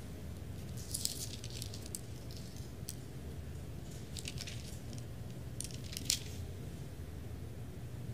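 Soft, intermittent rustling and crackling of thin Bible pages being handled and leafed through, a few short bursts with a small crackle about a second in and another about six seconds in, over a steady low room hum.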